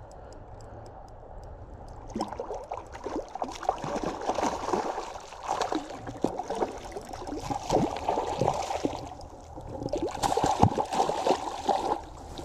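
Water splashing and sloshing close to the microphone in irregular bursts. It starts about two seconds in and eases briefly before picking up again near the end.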